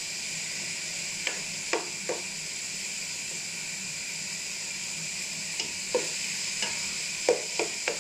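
Pork pieces browning with garlic and onion in a nonstick pot: a steady sizzle, with a plastic spatula stirring and knocking against the pan about seven times.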